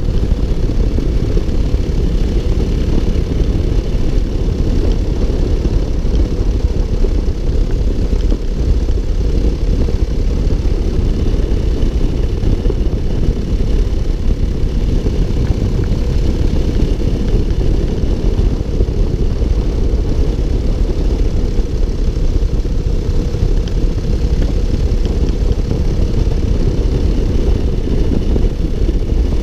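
Paramotor engine and propeller of a powered paraglider running steadily in cruise flight: a dense, low, even drone with no change in pitch.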